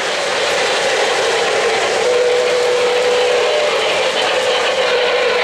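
Three-rail O-gauge model train running on the layout track, a steady rolling rumble and motor noise. About two seconds in, a steady hum joins it.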